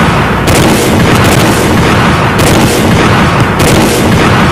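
A loud, unbroken barrage of explosion sound effects, one blast running into the next without a pause, with the blasts changing about half a second in and again near 2.5 and 3.5 seconds in.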